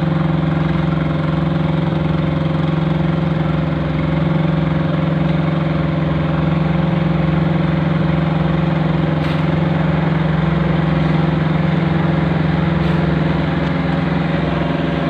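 Engine of a curb-stone forming machine running steadily at a constant speed, with an even, unchanging drone.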